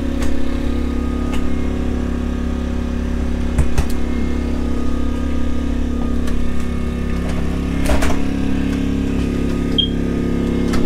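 Generator running outside the RV, a steady engine drone with a low hum. Short clicks and knocks come from cabinet and refrigerator doors being opened, the loudest about eight seconds in.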